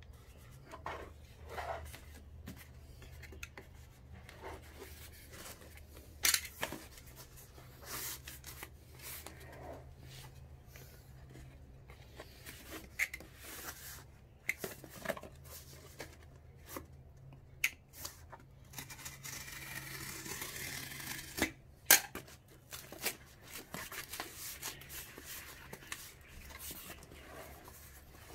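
Hand packing work on a plant basket and its cardboard lid: scattered snips, clicks and rustles, with a rasping stretch of about two seconds some twenty seconds in.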